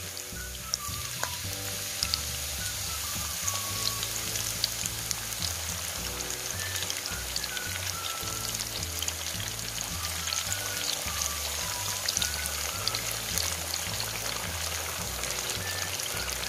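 Batter-coated banana pieces deep-frying in hot oil in a wok: a steady sizzle with dense crackling. Soft background music with a slow melody and bass plays underneath.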